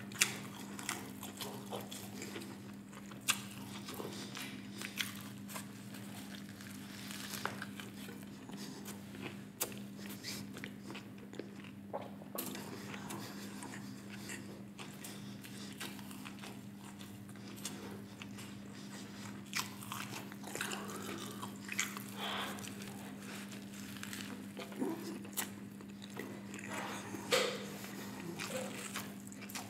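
Close-miked biting and chewing of a Flamin' Hot Cheetos burger: crunchy bites and crackly mouth sounds, with a louder bite near the start and again near the end. A steady low hum runs underneath.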